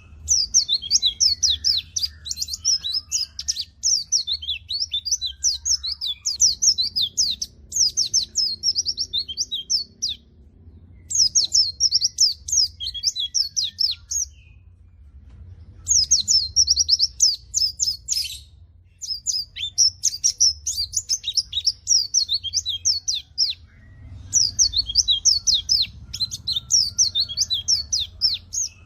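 White-eye (pleci) singing in long runs of fast, high twittering chirps, with two short pauses between phrases. The bird is in full, energetic song of the kind kept to coax quiet white-eyes into singing.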